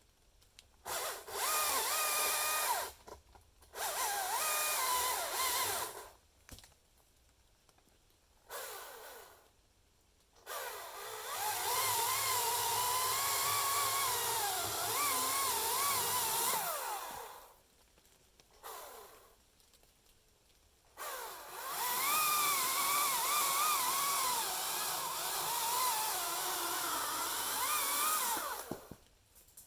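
Chainsaw cutting into an ash trunk at full throttle in several bursts, its pitch wavering as it bites into the wood. Two long cuts of about six and seven seconds follow shorter ones, with quiet gaps between.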